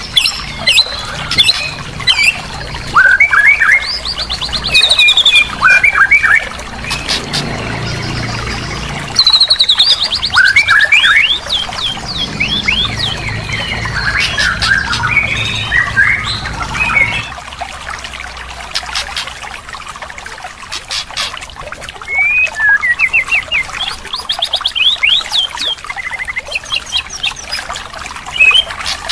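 White-rumped shama song: fast, varied phrases of clear whistles, chirps and rapid trills, loud and repeating, as used in a training recording to prompt a silent shama to sing. A low rumble runs underneath for a stretch in the middle.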